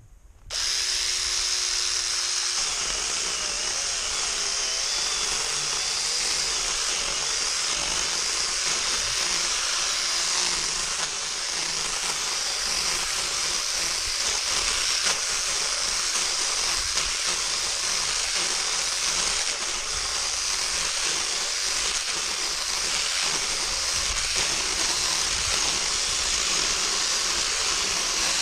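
Cordless mini chainsaw switching on about half a second in, then running steadily as it saws through wood.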